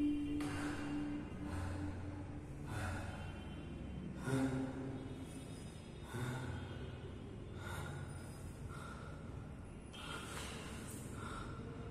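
Heavy, uneven breathing and gasps, roughly once a second, over a low suspense-music drone.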